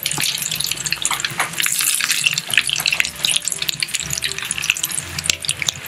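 Pączki (Polish doughnuts) deep-frying in a pot of hot oil: a dense, steady crackling sizzle as they are turned over.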